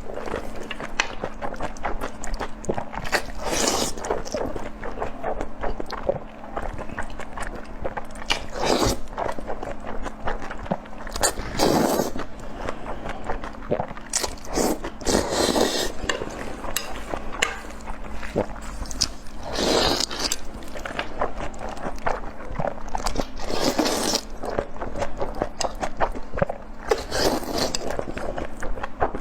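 Close-miked eating: biting and chewing, with a louder bite or crunch every few seconds.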